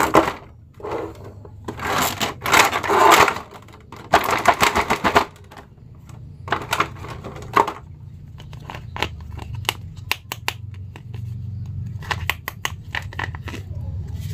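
Thin clear plastic blister packaging crinkling and crackling in several bursts as an action figure is worked out of its tray, followed by a run of light plastic clicks and ticks from handling the figure.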